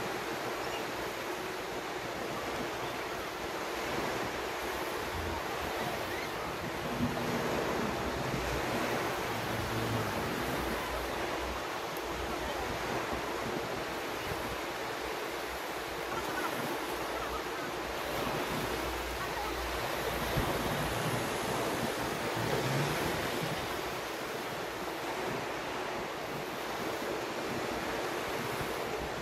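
Surf washing onto a sandy beach: a steady hiss of small breaking waves that swells gently in loudness, with wind buffeting the microphone in low rumbles.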